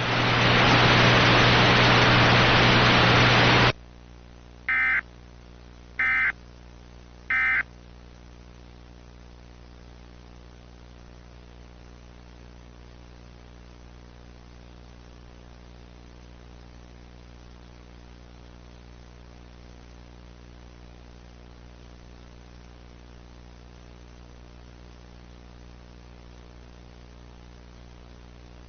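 Loud static with a steady low hum, cutting off suddenly about four seconds in. Then three short bursts of Emergency Alert System end-of-message data tones, a little over a second apart, followed by a faint steady hum.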